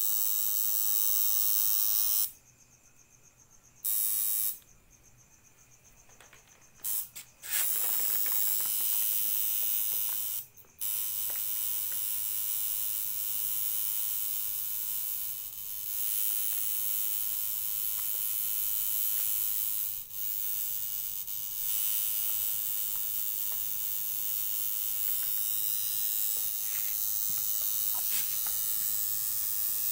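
Tattoo machine buzzing steadily as its needle works ink into skin. It cuts out twice for a second or two in the first seven seconds and briefly again about ten seconds in, then runs on without a break.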